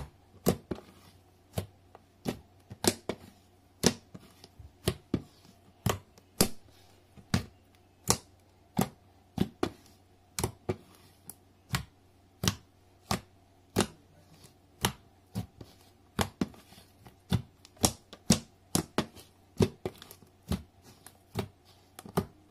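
Thick clear slime with sand mixed in, pressed and poked with the fingertips, giving sharp clicks and pops about one and a half times a second.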